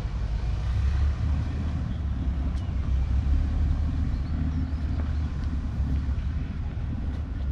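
A large engine running steadily close by: a continuous low rumble with a faint hum above it.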